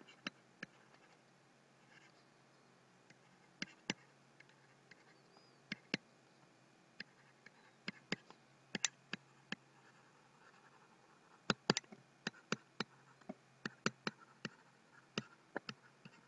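Faint, irregular clicks and taps of a stylus pen on a tablet while words are handwritten, coming in scattered clusters that get denser in the second half.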